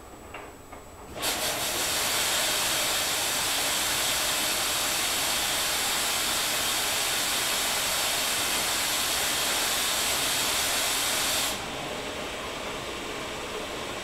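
Front-loading washing machine taking in water: about a second in, a loud steady hiss of water spraying into the drum starts suddenly, then near the end it drops to a softer rush.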